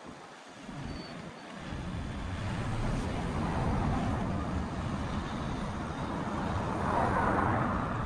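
Road traffic: cars driving past close by on a busy road, a steady noise that swells louder near the end.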